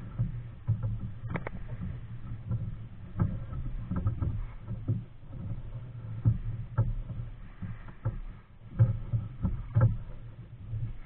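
Nelo Viper 55 kayak being paddled: repeated paddle strokes and knocks against the hull over a steady low rumble of water and hull.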